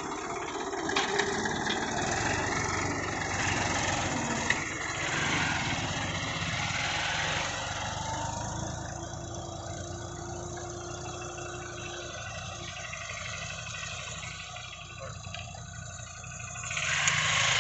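Massey Ferguson 241's three-cylinder diesel engine running steadily as the tractor pulls a tine cultivator through the soil, fading as it moves away; the sound grows louder again near the end.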